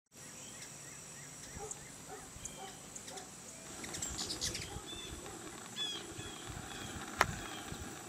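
Songbirds chirping and calling, with many short chirps and whistles over a steady high-pitched tone, and a single sharp click about seven seconds in.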